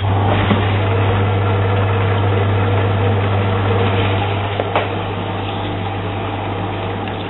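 Zanussi DA 4341 dishwasher's wash pump starting suddenly and running with a steady low hum and the rush of spraying water as the main rinse begins. There are a couple of light clicks about four and a half seconds in.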